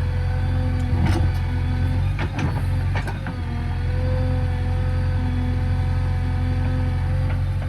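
JCB 3DX backhoe loader's diesel engine running steadily with a steady whine over it, and several sharp knocks and clanks, about a second in and again around two and three seconds in.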